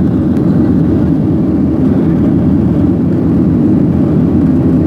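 Steady, low engine and airflow noise inside the cabin of a jet airliner climbing after take-off.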